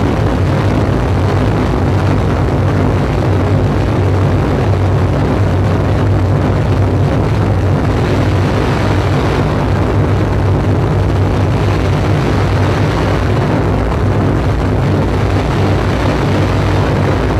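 Live electronic noise music played through loudspeakers: a loud, steady, dense low drone with rumbling noise, its upper hiss thinning briefly twice and swelling back.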